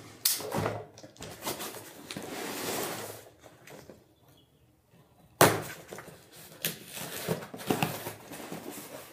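A cardboard shipping box being handled and its packing tape slit with a knife: scraping and scuffing on cardboard. After a short pause there is a sharp knock about five seconds in, the loudest sound, followed by more scratching at the tape.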